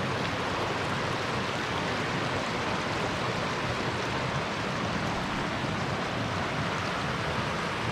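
River water rushing over rocky cascades just above a waterfall drop: a steady, unbroken rush of water.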